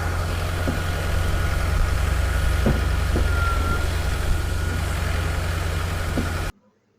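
Construction machine's engine running steadily with a deep hum, a few knocks over it. It cuts off abruptly near the end.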